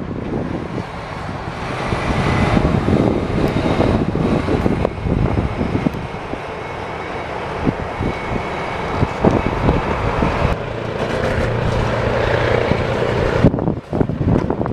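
Heavy truck driving by on a highway: a diesel tractor-trailer's engine and tyres over steady road traffic. The sound cuts out briefly near the end, then a dump truck's engine and road noise take over.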